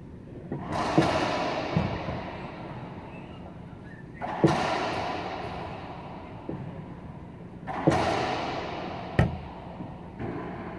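Racquetball being hit in an enclosed court: three sharp racquet-on-ball cracks about a second, four and a half and eight seconds in, each ringing on in the court's echo, with a softer knock of the ball off a wall or the floor after each.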